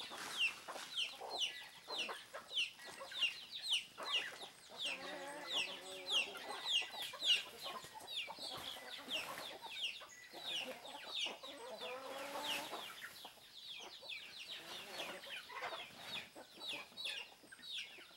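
A flock of free-range chickens: a steady stream of short, high, falling peeps from young birds, with lower hen calls at times, around five and twelve seconds in.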